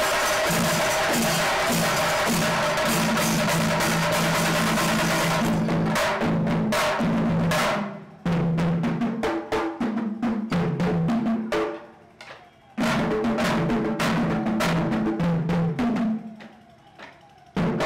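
Shinkari melam ensemble of chenda drums beaten with sticks and ilathalam hand cymbals clashing in a dense, fast rhythm. In the second half the whole ensemble stops short three times and comes back in together, the last break the longest.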